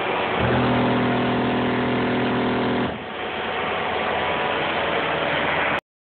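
Four 12-inch car subwoofers on two Audiopipe 1800 amplifiers playing bass at competition level in a Toyota RAV4, with the SPL meter reading 147.8 dB. The sound is harsh and noisy throughout, with a steady held bass note and its overtones from about half a second to three seconds in, and it cuts off abruptly near the end.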